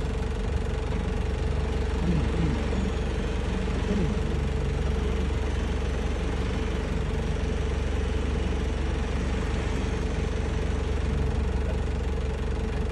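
A four-wheel-drive vehicle's engine idling steadily, a constant low rumble with a steady hum over it.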